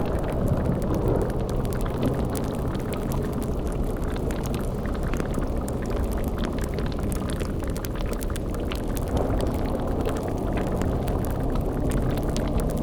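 Layered spooky sound-effect ambience: a steady low rumble with bubbling, like a boiling cauldron, and a constant fine crackle, over low droning tones.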